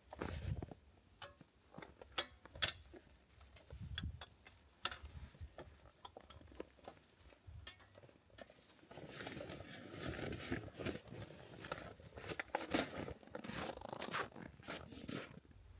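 Camp gear being handled and packed away: scattered clicks and knocks, then from about nine seconds in a long stretch of dense crunching and rustling.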